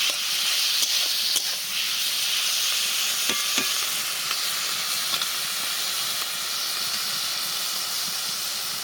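Prawns frying in hot mustard oil in a kadai, a steady sizzle, with two light knocks a little over three seconds in.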